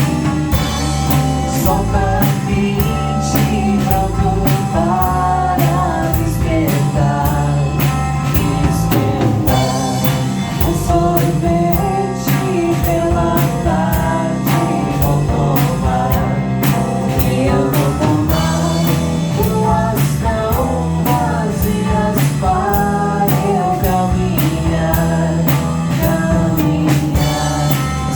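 A live rock band playing steadily, with a drum kit keeping a regular beat, guitar and a singer.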